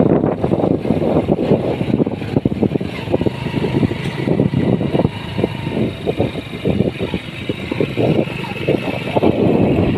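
Motorcycle riding along at steady road speed, its engine running under the loud, gusty rumble of wind buffeting the microphone.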